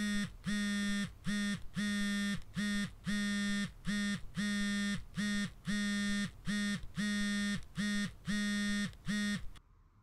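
Mobile phone buzzing with an incoming call, a rhythmic vibration-style alert of about three buzzes every two seconds, longer and shorter in turn, which stops shortly before the end.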